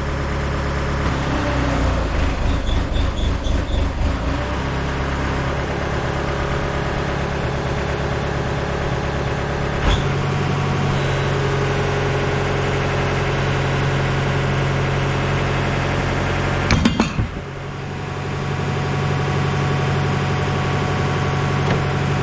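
Mini excavator's diesel engine running under hydraulic load as the boom pulls on a stuck hydraulic cylinder ram. The engine note pulses for a couple of seconds, steadies, then deepens about ten seconds in. A sharp metal clank comes about seventeen seconds in, after which the engine sound dips and builds back up.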